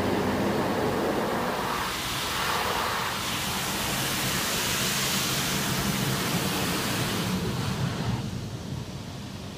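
Automatic car wash heard from inside the car: water jets spraying over the windshield in a steady hiss, with a low steady hum underneath. The spray eases off about eight seconds in.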